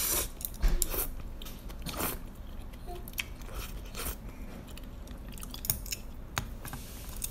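A person slurping a mouthful of noodles at the start, then chewing, with short sharp clicks and smacks throughout, the loudest a little under a second in.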